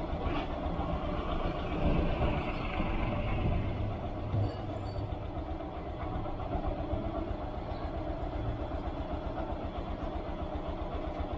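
Motorcycle engine of a sidecar tricycle running with a steady, fast putter. Two brief high-pitched squeals come about two and a half and four and a half seconds in.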